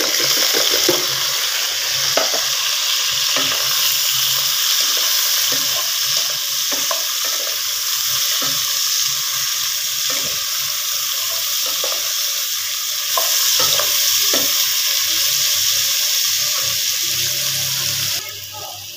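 Sliced onions and fried bitter gourd pieces sizzling in hot oil in a non-stick wok, with a wooden spatula knocking and scraping against the pan as they are stirred. The sizzle stops abruptly near the end.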